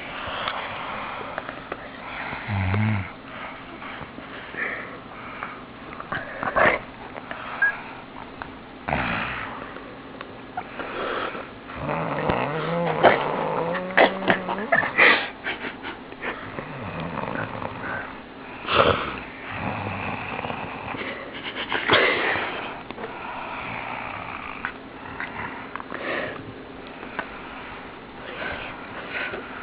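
A sleeping girl snoring, with wheezy breaths coming at uneven intervals.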